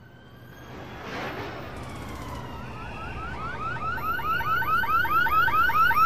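Siren-like electronic yelp: short rising chirps about four a second, growing louder toward the end over a swelling hiss and a low hum.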